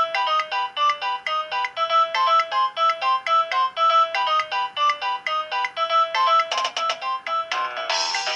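Nokia 2865i original polyphonic MIDI ringtone playing: a synthesized tune of quick, evenly paced notes over chords that starts suddenly. About two-thirds of the way in there is a rapid run of short notes, and near the end the sound turns fuller and brighter.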